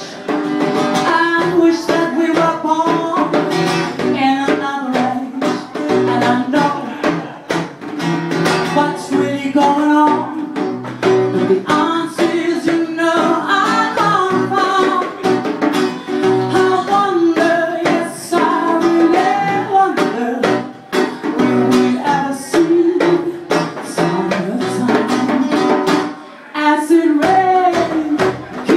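Live acoustic band: a woman singing over a strummed acoustic guitar and hand-played djembe drums.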